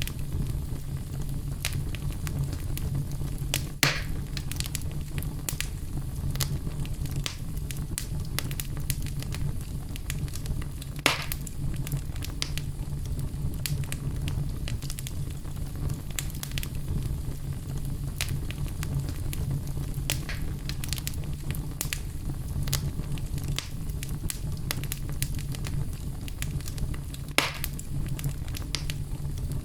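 Fireplace wood fire crackling, with a steady low rumble of the flames and frequent small snaps. Three louder pops stand out, about 4, 11 and 27 seconds in.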